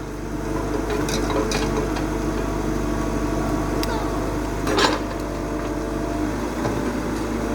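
Excavator's diesel engine running steadily, with a few sharp metallic clanks, one about a second in, another soon after and a louder one near the end.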